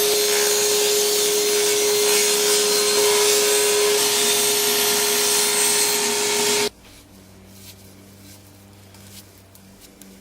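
Power saw with its blade tilted to 30 degrees, running and cutting oak strips: a steady whine under a loud cutting noise. It cuts off suddenly about two-thirds of the way through.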